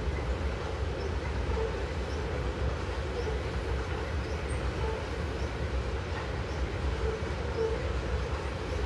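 Freight train of tank cars rolling steadily across an overhead concrete bridge: a continuous low rumble of wheels on rail.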